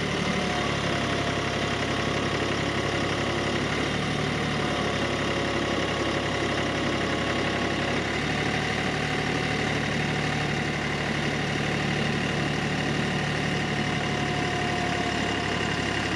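Ford compact tractor's engine running steadily while its front loader lifts a barrel out of a pickup bed.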